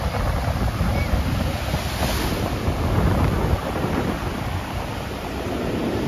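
Sea surf breaking and washing up a sandy shore, with gusty wind buffeting the microphone in a heavy, fluttering rumble.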